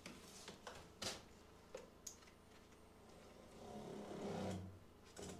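Quiet handling of an electric backpack sprayer: a few light clicks and knocks as the wand and tank are moved, then a brief low hum about four seconds in.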